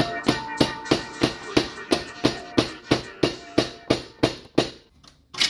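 Hammer blows driving a new aluminum pivot bushing into a quad's swing arm, struck steadily at about three a second with a brief metallic ring, then stopping, with one last blow near the end.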